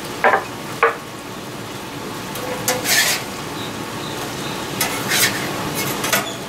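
Cinnamon-sugar banana slices sizzling on a hot flat-top griddle, with a metal spatula scraping across the griddle plate in several short strokes as they are lifted off.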